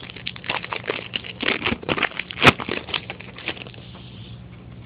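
Baseball card pack and cards being handled: rustling and irregular crackling, with one sharp snap about two and a half seconds in.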